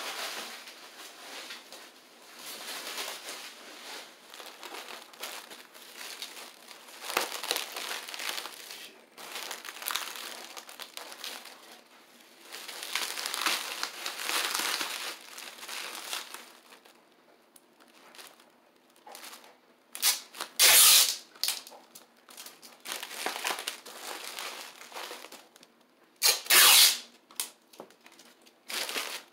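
Plastic bubble wrap crinkling and rustling in uneven bursts as it is folded around a car part, with two short, louder rips in the second half.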